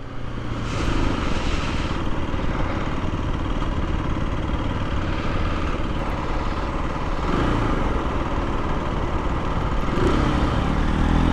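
Aprilia RS 125's single-cylinder four-stroke engine running at low speed in traffic, heard from the rider's seat with wind and road noise over it. The engine note rises briefly a couple of times in the second half.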